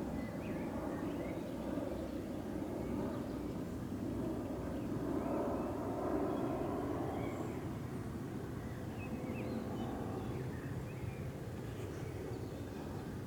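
Steady low outdoor rumble, with faint short bird chirps now and then above it.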